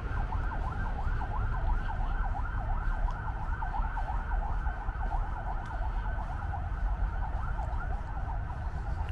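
Emergency-vehicle siren in a fast warbling yelp, about four to five sweeps a second, fading away near the end, over a steady low rumble.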